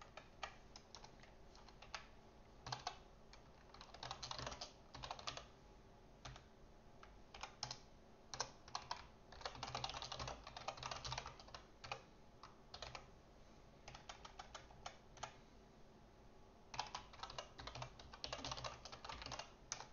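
Computer keyboard typing: faint runs of keystrokes in several bursts, with short pauses between them.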